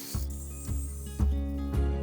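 Background music with a steady deep beat, about two beats a second.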